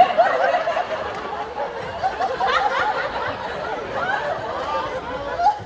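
Audience laughing, many voices overlapping.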